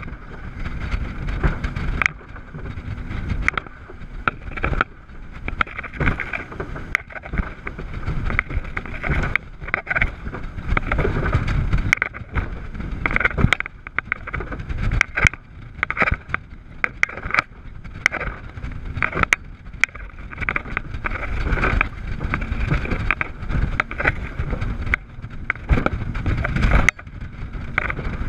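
Rigid inflatable speedboat running fast over chop: the steady drone of its twin Yamaha 350 hp V8 four-stroke outboards under wind noise, with irregular thuds as the hull hits the waves.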